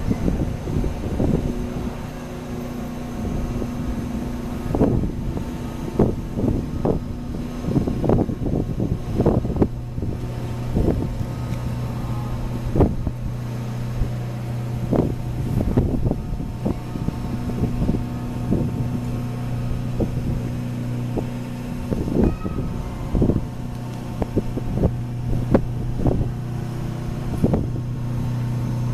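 Engines of a high-speed catamaran ferry droning steadily as it manoeuvres in to its berth, the low hum growing stronger about ten seconds in. Irregular short low thumps sound over the drone.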